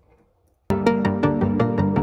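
Electronic background music with a steady beat, starting abruptly about two-thirds of a second in.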